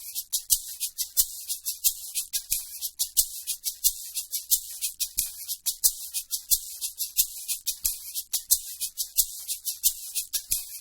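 Pop shaker loop: a shaker playing a steady rhythmic pattern of short, high, crisp strokes, several a second, with no bass underneath.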